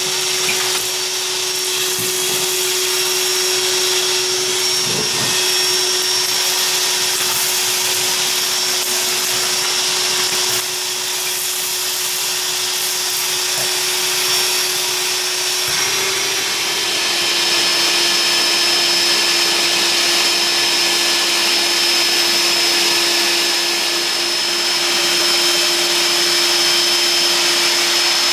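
Ryobi P770 18V cordless wet/dry vacuum's motor running steadily, a constant hum and rush of air. The pitch of its hum drops slightly a little past halfway.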